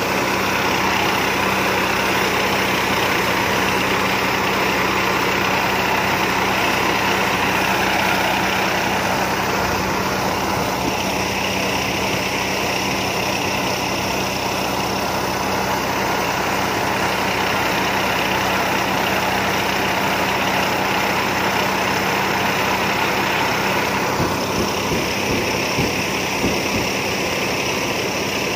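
Rice combine harvester's diesel engine and machinery running steadily, a loud even mechanical hum whose tone shifts a little twice.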